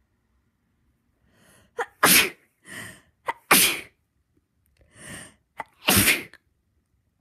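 A person sneezing three big sneezes in a row, brought on by tickling the nose. Each one starts with a quick gasping intake and a sharp catch, then bursts out loud, about a second and a half apart, with a longer pause before the third.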